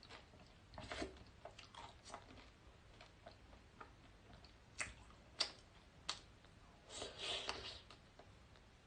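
A person eating dessert close to the microphone, chewing and biting, with scattered short clicks: a few sharp ones about five seconds in and a brief cluster near the end.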